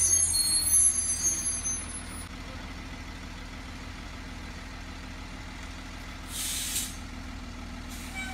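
School bus engine idling with a steady low hum, and a short hiss of the air brakes about six and a half seconds in.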